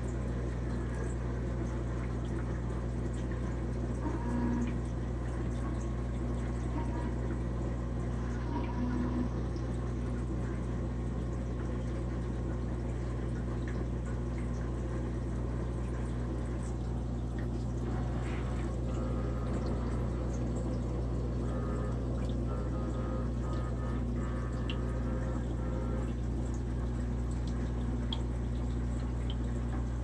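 Aquarium filter running: a steady sound of moving water over a low, even hum.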